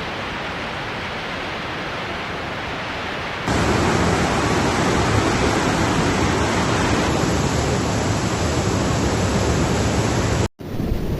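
Steady rushing of floodwater, an even noise with no distinct events. It steps up louder about three and a half seconds in and cuts out for a moment near the end.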